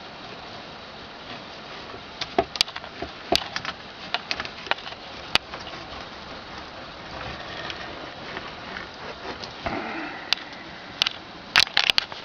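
Campfire wood crackling and snapping, with scattered sharp pops over a steady hiss, the loudest cluster of snaps near the end.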